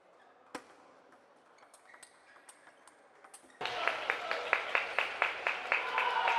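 Table tennis ball hits: one sharp click about half a second in, a few light ticks, then a rally of quick ball clicks off bats and table, about four a second. The rally starts with a sudden rise in arena background noise.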